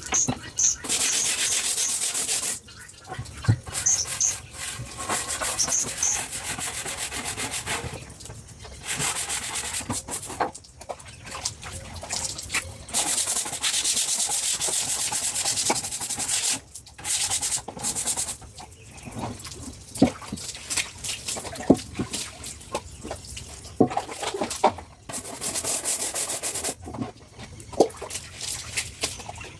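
A stiff brush scrubbing a hard floor in rough strokes of one to two seconds, with short pauses between them. Birds chirp faintly near the start.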